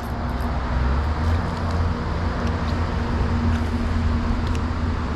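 Steady rumble of road traffic with a faint, even low hum, and a few faint ticks on top.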